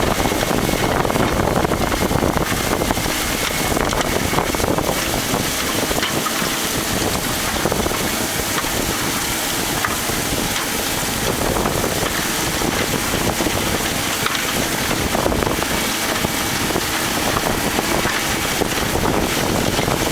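Challenger 75D rubber-tracked tractor's diesel engine running steadily under load while pulling a ten-furrow plough, with wind buffeting the microphone.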